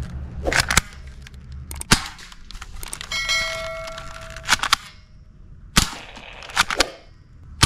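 Toy machine gun firing: sharp cracks at uneven intervals, several in quick pairs. About three seconds in, an electronic chime of several steady tones sounds for about a second.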